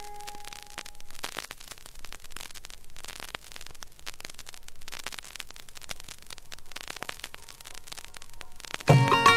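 Vinyl LP surface noise in the quiet groove between tracks: soft hiss with scattered crackles and pops. The last note of the previous song dies away in the first second, and the next song's music starts abruptly near the end.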